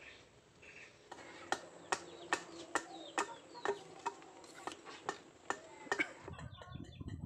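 Hand chiselling of a wooden plank: a hammer strikes a chisel in a steady run of about a dozen sharp knocks, roughly two and a half a second. The knocks start about a second and a half in and stop about six seconds in.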